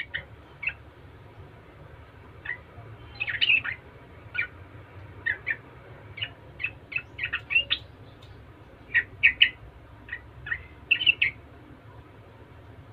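Yellow-vented bulbul (trucukan) chattering: short, sharp chirping notes, some single and some in quick runs of several, scattered with gaps between.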